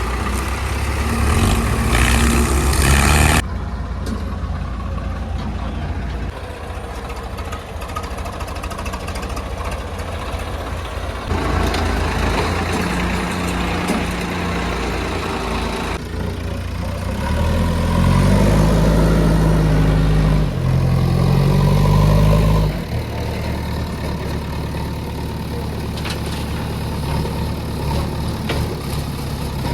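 Heavy diesel engine running, its revs changing through the stretch, with several abrupt jumps in the sound and a higher-revving spell for a few seconds past the middle.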